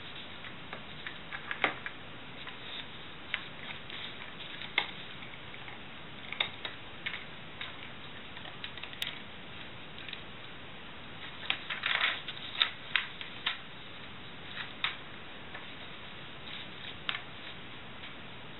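Glossy magazine pages crinkling and crackling as they are handled, in irregular sharp crackles that bunch up around twelve seconds in.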